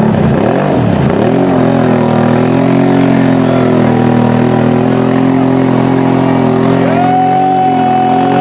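Lifted mud ATV's engine held at high revs as its giant tyres churn through deep mud; the pitch bobs briefly, then holds steady. A long, high held tone joins over it near the end.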